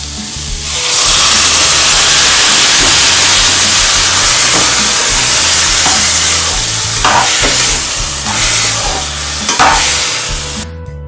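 A bowl of water poured into a hot pressure-cooker pan of frying diced beetroot and carrot sizzles loudly, a hiss that starts about a second in. A slotted spoon stirs and scrapes through the vegetables a few times, and the hissing dies away near the end.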